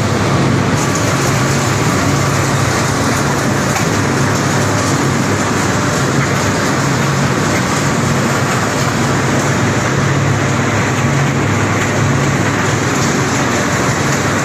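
PE film recycling washing line running: a loud, steady machinery din of motors, crushers and washers, with a constant low hum underneath.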